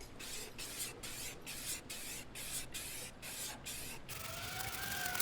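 Aerosol can of flat black high-heat spray paint hissing in short quick bursts, about three a second, as the inside of a kettle grill is coated, then spraying steadily for the last second. Near the end a cat meows over the spray.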